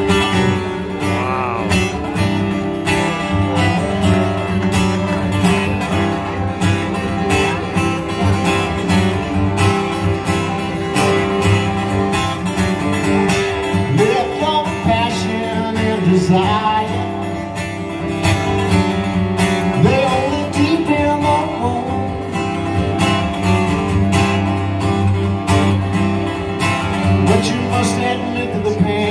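Live solo acoustic guitar strummed steadily through an instrumental passage, with harmonica melody lines bending over the chords.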